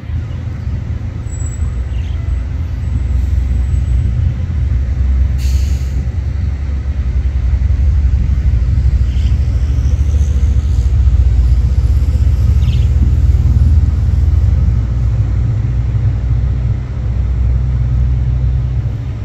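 Low, steady rumble of a patrol boat's engines as it cruises past, swelling towards the middle and easing near the end. A single sharp click sounds about five seconds in.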